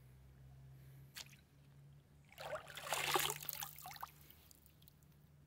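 Pool water splashing and trickling as a render-coated sample slab is dipped in by hand and lifted out, lasting about two seconds midway. A faint steady low hum sits underneath.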